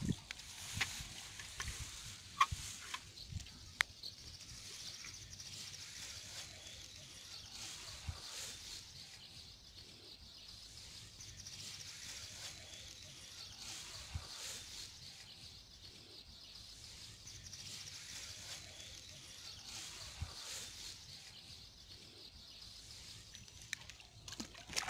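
Quiet rural outdoor ambience with a steady high-pitched hiss, and a few light knocks in the first few seconds.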